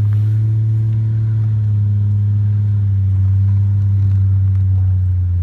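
A motor running with a steady low drone, its pitch dropping slightly near the end.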